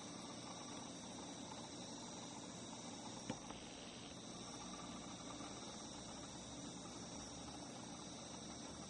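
Faint, steady chorus of singing insects: a few high, unbroken tones over a soft hiss, with one small click about three seconds in.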